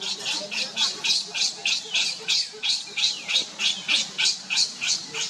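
Baby macaque screaming in a rapid string of short, high-pitched shrieks, about four a second: a distress cry calling for its mother.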